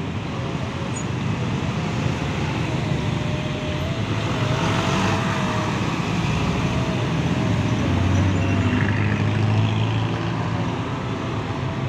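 Congested road traffic of buses, cars, a box truck and motorcycles idling and creeping past close by, a steady mix of engines. A heavy engine's low hum grows louder about eight seconds in.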